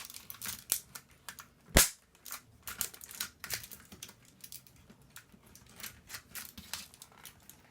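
Irregular clicks and snaps from the plastic and metal parts of an old computer keyboard being taken apart, with one sharp, loud snap about two seconds in.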